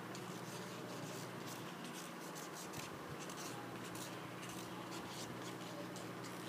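Faint, scratchy clicks and rubbing of a small plastic Kinder Joy egg being handled close to the mouth, over a steady low hum.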